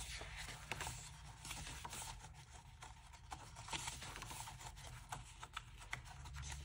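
Faint paper handling: diary pages being turned and pressed flat, with soft rustles and scattered small ticks.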